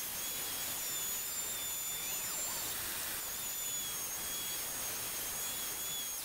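Electric random orbital sander running on a walnut cutting board, a steady high-pitched whine over the hiss of the sanding disc on the wood.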